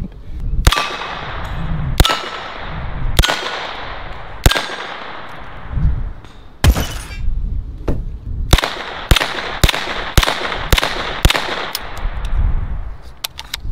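Short-barreled UZI Model B 9mm carbine firing about a dozen single shots at small steel animal targets, each crack followed by an echoing tail. The shots come about a second or so apart at first, then quicken to about two a second from about eight seconds in.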